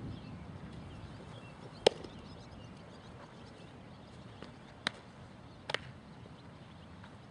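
Baseball infield practice: a bat striking ground balls and the ball smacking into leather gloves. There is one loud crack about two seconds in, then two more sharp knocks close together about three seconds later.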